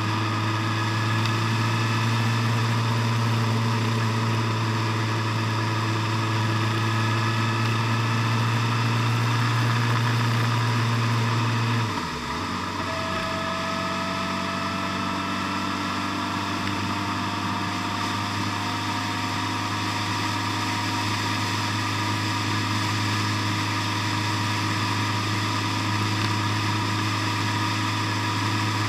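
Vehicle engine running steadily while driving along a road. About twelve seconds in there is a brief dip in the sound, after which its pitch slowly rises.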